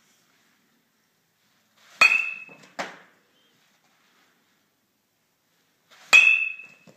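Weighted-handle training bat hitting soft-tossed baseballs twice, about four seconds apart: each hit is a sharp crack with a brief ringing ping that fades within half a second. A softer knock follows just under a second after the first hit.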